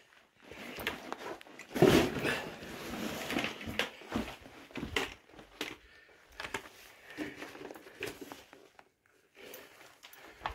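Backpack scraping and rubbing against rock while squeezing through a narrow rock passage, with irregular crunching, crinkling and knocks, loudest about two seconds in. The hiker thinks the noise was a plastic water bottle on the pack getting crunched against a rock.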